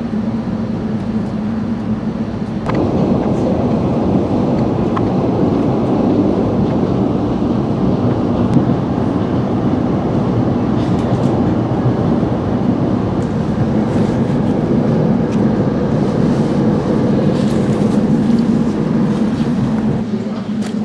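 Train running, heard from inside the passenger car: a steady rumble and rolling noise with a low hum. It grows louder about three seconds in and eases a little near the end.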